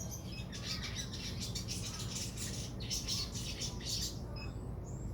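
Sogon bird calling in a rapid, dense run of sharp chirps for about four seconds, then a couple of brief high whistles near the end, over a steady low hum.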